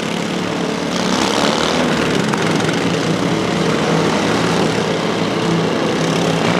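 Several riding lawn mower engines running hard together, a steady loud drone, with a short rush of higher hiss about a second in.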